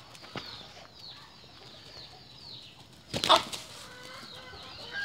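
Two roosters fighting, with one loud burst of wing flapping and scuffling about three seconds in. Faint high bird chirps run underneath.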